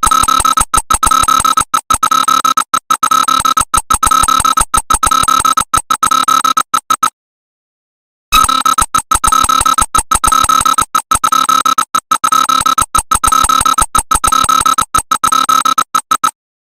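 Emergency alert alarm: a loud electronic tone, chopped into rapid irregular pulses. It comes in two runs of about eight seconds, with a second of silence between them about seven seconds in.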